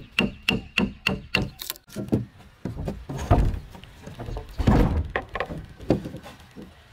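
Wooden mallet striking a steel chisel into a timber beam to cut a notch: a quick, even run of about six sharp strokes, roughly three a second, in the first couple of seconds, then heavier, irregular knocks mixed with scraping as the chisel works the wood.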